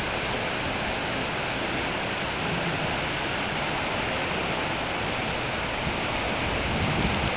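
Strong wind of a severe thunderstorm rushing steadily, an even hiss with no gusts or thunder in it.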